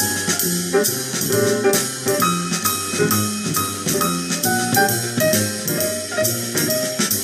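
Instrumental jazz passage with piano, drum kit and saxophone, a song played back as a test of JBL GT6-4 car speakers, with a steady beat.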